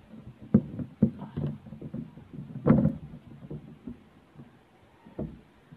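Irregular knocks and clatter of gear being handled, with louder thumps about half a second in, a second in and near three seconds in.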